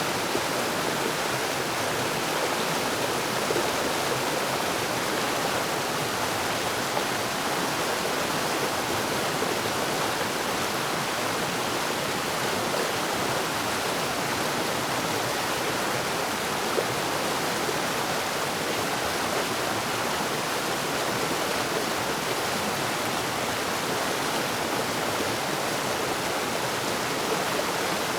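Forest waterfall: water falling and rushing steadily, an even splashing roar with no let-up.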